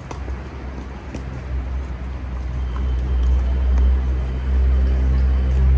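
A motor vehicle's engine running steadily nearby, a low hum that grows louder from about halfway through. Near the start, a couple of sharp knocks of a tennis ball on a racket.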